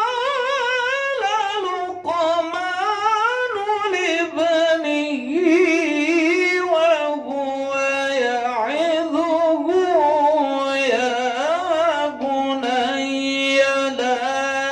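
A man's voice reciting the Quran in the melodic tilawah style into a handheld microphone. It moves in long, ornamented phrases with wavering, trilled pitch and comes to rest on a long held low note near the end.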